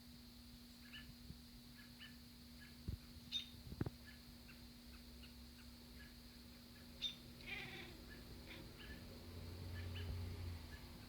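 A cat chirping at wild birds, with the birds' short high chirps repeating throughout. A denser chirping call comes about seven and a half seconds in, and there are two dull thumps about three and four seconds in.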